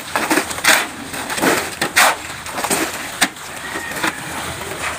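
Irregular scrapes and knocks of hand tools working at a concrete pour, about one every half second to second, the sharpest just after the middle, easing to a steadier noise near the end.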